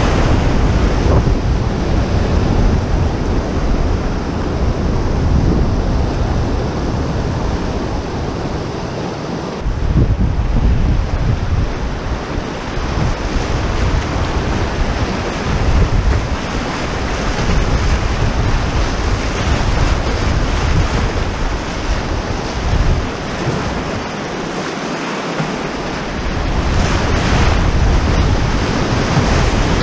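Rushing whitewater rapids around a canoe, a steady dense roar of moving water, with wind buffeting the microphone in gusts that ease briefly twice.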